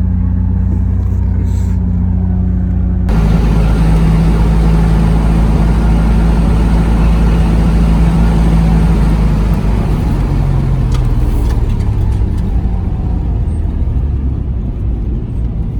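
Nissan 350Z's V6 engine running. About three seconds in it gets louder and higher in pitch and holds there, then drops back lower after about ten seconds.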